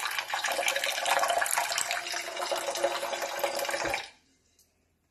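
Kitchen tap running into a saucepan of rinsed basmati rice, filling it with water. The flow stops abruptly about four seconds in.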